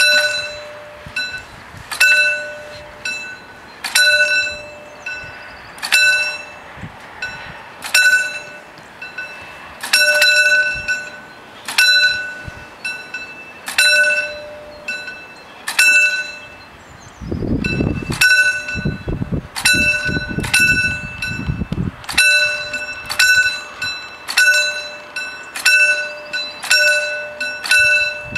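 Level-crossing warning bell striking about once a second, each stroke ringing on, warning that a train is approaching and the barriers are about to come down. A low rumbling noise rises under the bell for a few seconds around the middle.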